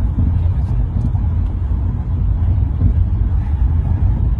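Steady low rumble of a car driving at speed, heard from inside its cabin.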